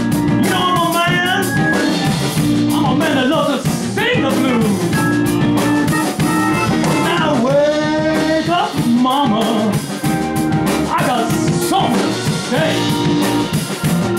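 Blues band playing a solo break: a lead line of bending, gliding notes over drums and steady held backing notes.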